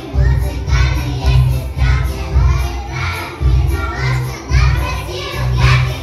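A group of young children singing chastushki, Russian folk ditties, together over a musical accompaniment with a steady, regular bass beat.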